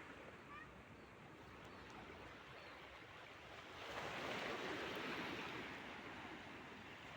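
Water washing and splashing, swelling about four seconds in and then easing off.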